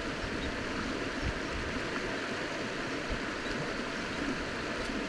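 Shallow, rocky river flowing: a steady, even rush of water.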